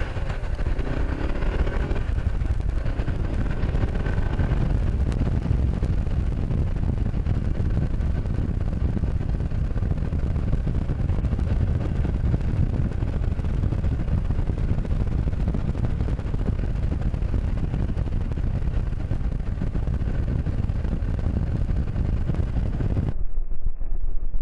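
A 2013 Honda CB500X's parallel-twin engine running under way, mostly buried under steady, heavy wind and road noise on a helmet-mounted microphone. About a second before the end, the sound changes abruptly to a duller, narrower recording.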